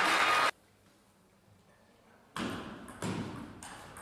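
Table tennis rally: sharp hits of the celluloid ball on bats and table, roughly every 0.6 s, each ringing on in the hall. They come after a near-silent gap. In the first half-second there is a steady noise, likely the crowd's applause, which cuts off suddenly.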